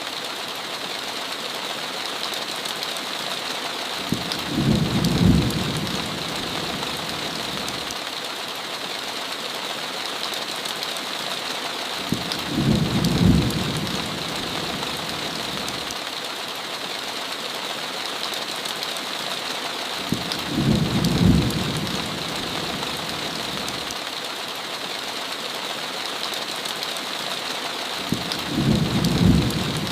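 Steady heavy rain pattering on a window, with a low thunder rumble that swells and peaks four times, about every eight seconds.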